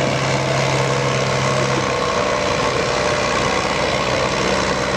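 David Brown 1490 tractor's four-cylinder diesel engine running hard under heavy load as it drags the weight-transfer sled. It is a loud, steady engine sound, and its low note changes about two seconds in.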